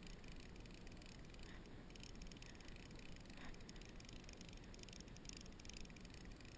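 Near silence: faint, steady outdoor background with a couple of soft, brief sounds about one and a half and three and a half seconds in.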